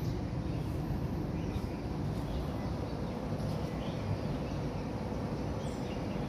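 Steady low outdoor background rumble with a few faint, short high chirps scattered through it.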